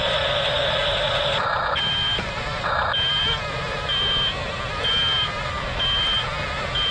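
Double E E579 RC bulldozer's electric drive and gear noise, then its built-in sound effects give a high reversing beep about once a second, six beeps in all, as the toy dozer backs up.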